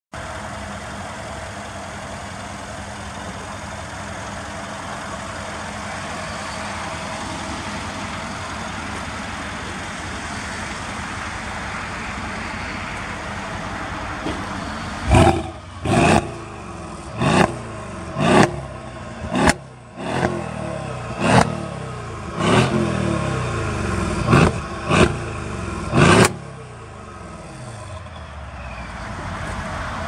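Mercedes ML63 AMG's twin-turbo 5.5-litre V8 idling steadily, then blipped hard about ten times in quick succession, each rev dropping straight back, before settling to idle again.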